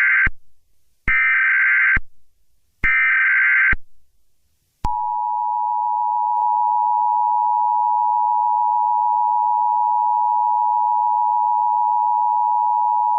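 Emergency Alert System opening: the end of one SAME header data burst, then two more data bursts, each about a second long. From about five seconds in comes the steady two-tone attention signal, held for about eight seconds, announcing an emergency alert.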